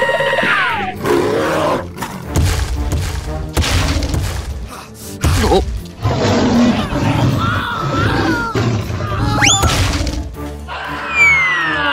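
Background music mixed with added cartoon sound effects: a monster roar and heavy crashing noises, a quick rising whistle about two-thirds of the way through, and falling whistling sweeps near the end.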